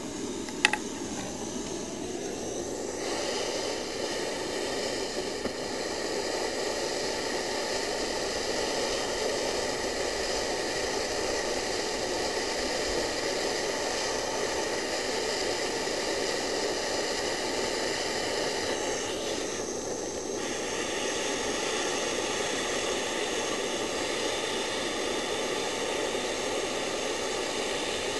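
Handheld gas torch lit with a sharp click about a second in, then hissing steadily as its flame heats a soldered copper pipe fitting.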